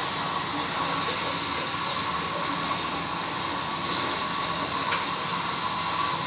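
A steady hiss with a faint steady whine, the even running noise of a machine.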